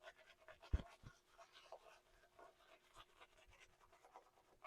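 Faint, soft scratching of a shaving brush loaded with shave soap being swirled against the face, working up a face lather. A low thump sounds about a second in.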